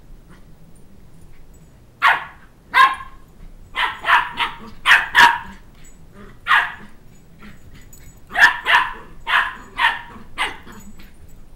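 Shetland Sheepdog puppy barking during play: about a dozen short, sharp barks in quick bunches, starting about two seconds in.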